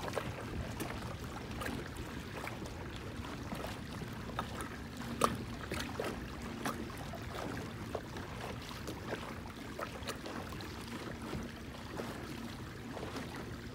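Water lapping and trickling against the hull of a moving pedal kayak, with many small ticks and drips and one sharper click about five seconds in.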